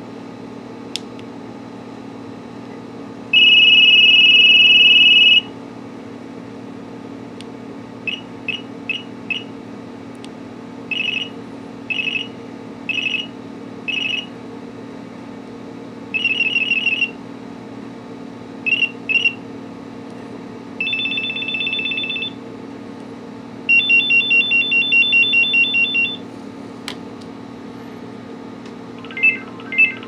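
Kyocera QCP 3035 cell phone's built-in ringer playing short previews of its ring tones one after another. The previews are electronic beeping patterns: a steady two-tone ring, quick groups of beeps, a warbling burst and a fast pulsing ring, with pauses between them.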